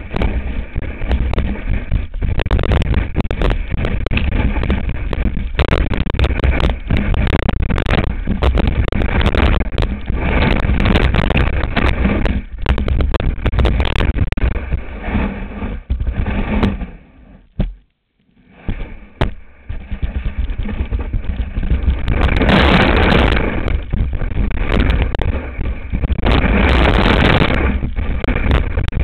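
Skis scraping and chattering over packed snow, with wind buffeting a microphone mounted low on the skis, heard as a loud, rough, rattling rush. The noise cuts out briefly for about a second roughly two-thirds of the way through, then comes back.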